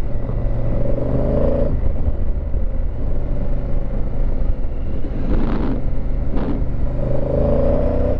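Honda Africa Twin CRF1000L parallel-twin motorcycle engine running under way, rising in pitch twice as it accelerates, with two short noisy rattles in the middle.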